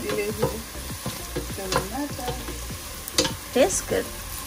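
Chicken curry frying with its spices in a pot while it is stirred: a steady sizzle with the spoon scraping and knocking against the pot several times, sharpest about three seconds in.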